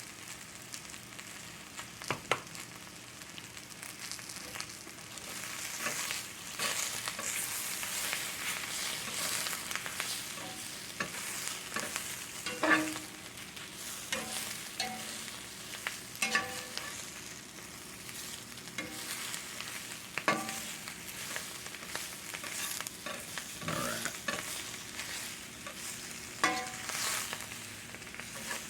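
Cabbage and sausage sizzling in a cast iron skillet, with a steady frying hiss. They are stirred and scraped around the pan with a utensil, giving several sharp clacks against the iron.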